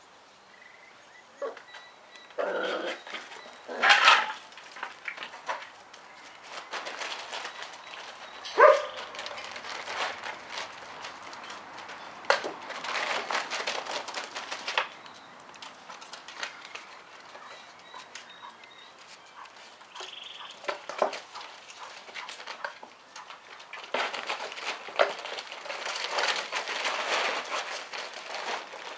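Five-week-old Tervuren puppies barking and yapping in play, with a few sharp yaps in the first ten seconds. Between them comes the rustle of a plastic tarp as they scramble over it.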